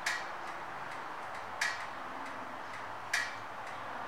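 Three sharp ticks, one about every second and a half, each with a short decay, over a steady hiss.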